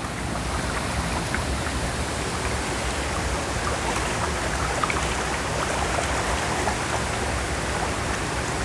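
Water running and splashing steadily, with small scattered splashes through it.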